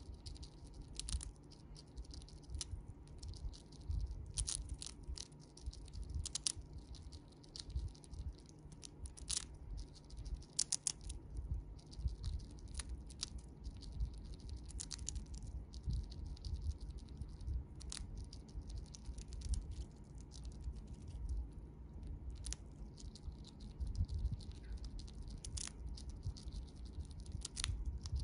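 Siberian chipmunk crunching a dried vegetable chip: crisp, irregular crunches and clicks from its teeth, sometimes several in quick succession and sometimes with short pauses.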